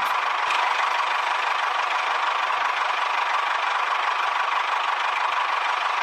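Small electric motor of a DIY toy tractor running steadily, a continuous whirring buzz with a faint steady whine.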